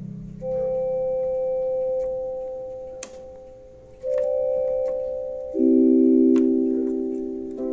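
Lowrey electronic organ playing slow, separate held notes and chords, each one sounding and then fading away. A lower, louder chord comes in about two-thirds of the way through, with small clicks between the notes.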